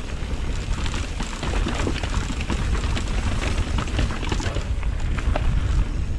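Mountain bike riding down a rough trail: a steady rumble of tyres and wind on a helmet-mounted action camera's microphone, with many small rattles and clicks from the bike over the ground.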